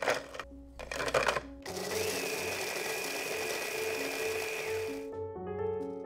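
Hand blender with a chopper attachment grinding biscuits into crumbs: the motor runs at a steady whine for about three and a half seconds, then drops in pitch as it stops. Before it starts, biscuits clatter into the plastic bowl a couple of times. Background music plays throughout.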